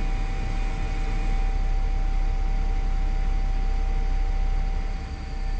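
DN Solutions Puma TT2100 CNC lathe running a finishing face-groove pass in a brass part with a modular face-grooving tool: a steady machine rumble with a constant whine, dipping briefly about five seconds in.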